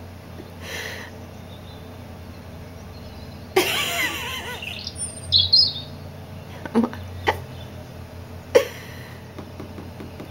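European robin song played back through small desktop computer speakers: a burst of warbling phrases about three and a half seconds in, then a few short high notes, with several short sharp ticks later on.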